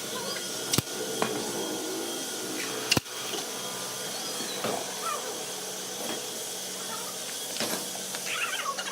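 A steady whooshing machine noise with a faint hum, broken by two sharp knocks about one and three seconds in.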